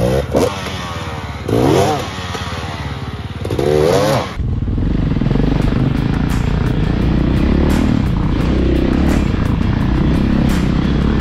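Dirt bike engine revved in three short rising-and-falling blips as the rider works the bike over rough ground. About four seconds in, the sound changes abruptly to a steady, lower engine drone of trail bikes riding on, with scattered sharp clicks.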